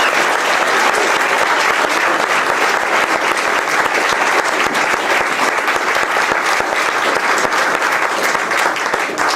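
Audience applauding steadily, a dense clatter of many hands clapping, starting to die down right at the end.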